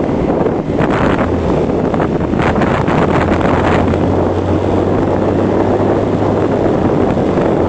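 A vehicle on the move: a steady low engine hum under loud road and wind noise, with wind buffeting the microphone.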